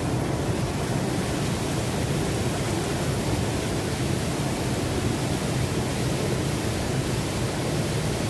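Steady rush of a waterfall, water pouring and crashing without a break.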